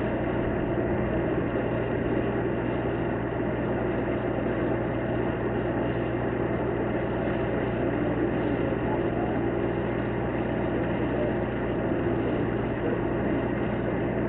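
A steady low engine rumble with a constant hum underneath, unchanging throughout.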